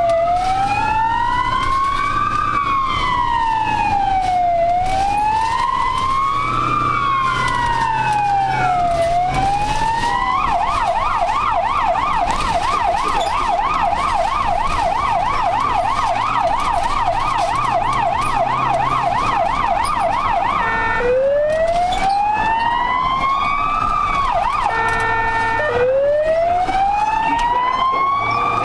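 Ambulance electronic siren heard from inside its own cab: a slow wail rising and falling every four to five seconds, switching about ten seconds in to a rapid yelp for about ten seconds, then back to the wail, which breaks off briefly and restarts about three-quarters of the way through. A steady engine drone runs underneath.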